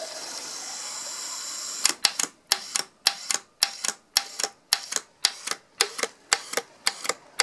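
Water solenoid valve on a flake ice machine's water inlet. It hisses steadily for about two seconds, then clicks open and shut about twice a second. This pulsing happens at start-up until the water reaches its fill level, after which the valve opens only briefly now and then.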